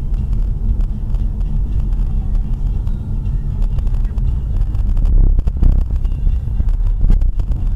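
Car driving, heard through a dashcam: steady low engine and road rumble, a little louder about five seconds in.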